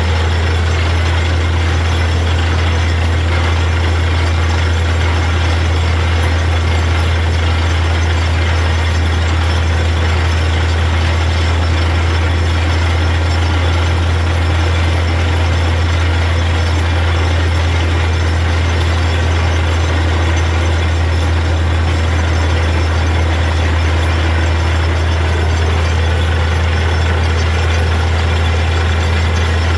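Truck-mounted borewell drilling rig running steadily with a constant low engine drone, with water and rock cuttings rushing and splashing out of the borehole.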